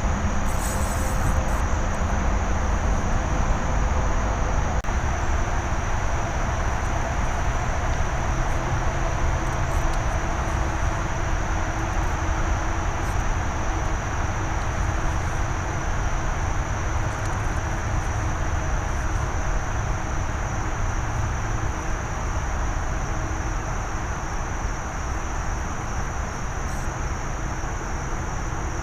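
A steady low rumble, heaviest at the bass end, over a continuous high-pitched chorus of night insects such as crickets trilling without a break.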